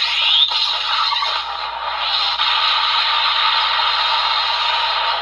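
Electronic finishing-move sound effect from a Kamen Rider Geats DX transformation toy, played through the toy's small speaker: a dense, steady rush of noise that cuts off shortly after.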